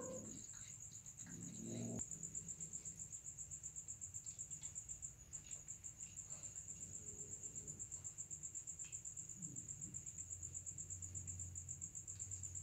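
Crickets chirping in a fast, steady, high-pitched pulse. A cat's yowl trails off at the start and another short cat cry rises and breaks off about two seconds in.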